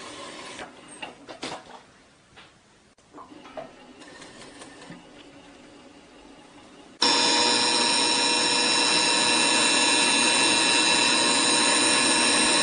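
TK-801D leather skiving machine's built-in sharpener grinding its rotating bell knife: a loud, steady grinding whine that starts suddenly about seven seconds in. Before that, only a few quiet clicks from handling the machine's parts.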